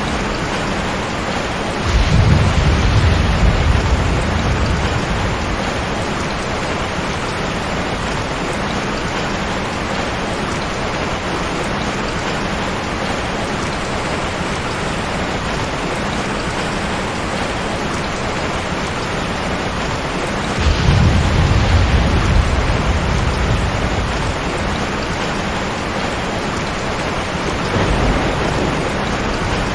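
Heavy rain falling steadily, with deep rolls of thunder rumbling three times: about two seconds in, past the middle for a few seconds, and briefly near the end.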